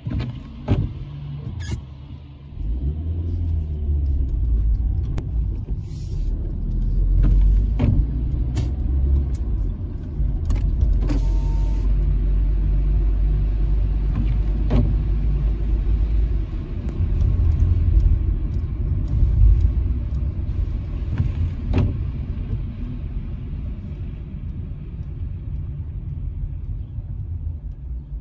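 Car driving, heard from inside the cabin: a steady low engine and tyre rumble on a wet road, with scattered clicks and taps. The rumble eases off near the end as the car slows.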